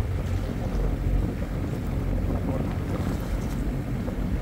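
Steady wind rumbling on the microphone aboard a sailboat under way, with water washing along the hull.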